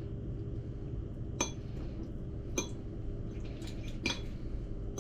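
Metal fork clinking against a dish as a bite of fish and ravioli is picked up: about three sharp clinks with a few lighter taps between, over a low steady hum.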